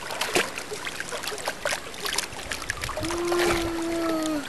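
River water splashing and lapping as a baby is moved through it by hand. About three seconds in, a voice holds one steady note for over a second, dipping slightly as it ends.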